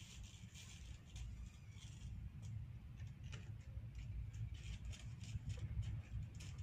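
Irregular crackling and ticking of a stick-welding rod arcing on DC power from a battery bank, over a steady low rumble.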